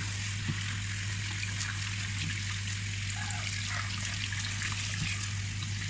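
Kitchen tap running into a stainless steel sink while a whole fish is rinsed under the stream by hand, with small splashes, over a steady low hum.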